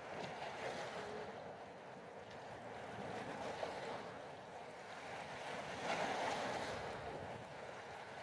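Sea water washing and sloshing, with wind on the microphone, swelling louder about six seconds in.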